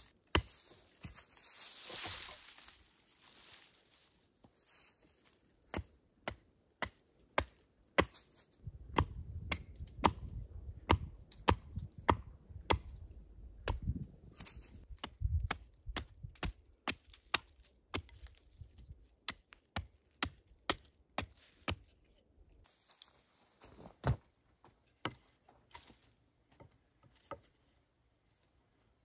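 Axe chopping wood: a steady series of sharp blows, about one or two a second, starting some six seconds in.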